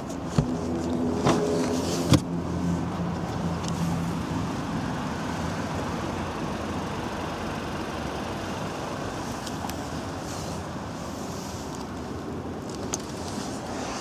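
Three sharp clicks and knocks from a Skoda Octavia II's rear seat-back release latch and folding seat within the first two seconds, the last the loudest, followed by a steady background noise.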